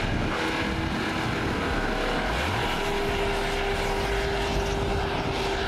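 The V8 engine of a 1996 Land Rover Defender running at steady revs under load on a loose sand climb: an even, steady droning note.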